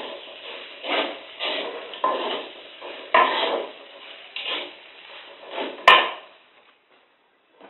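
Metal spatula scraping and tossing food in a steel wok while stir-frying, in repeated strokes about twice a second. Near the end a single sharp clank of metal on the wok, the loudest sound, then the strokes stop.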